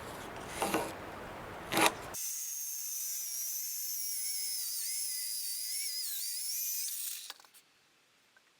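A power tool's motor runs with a high whine for about five seconds, its pitch wavering and dipping briefly as it comes under load in cedar, then stops abruptly. Before it there are a couple of knocks from handling wood.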